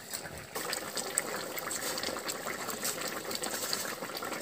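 A pot of fish and pumpkin curry bubbling at a simmer, with light clicks as fried fish pieces are slid from a steel plate into it.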